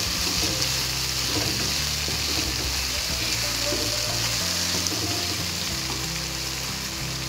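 Ground spice paste with chilies and tomato sizzling steadily in hot oil in a non-stick wok while a wooden spatula stirs and pushes it around.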